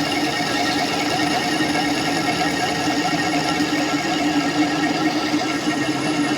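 A machine running steadily with a constant hum.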